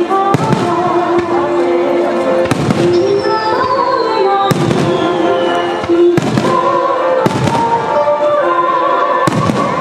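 Aerial fireworks shells bursting in a string of loud bangs, about one every one to two seconds, over music played on loudspeakers.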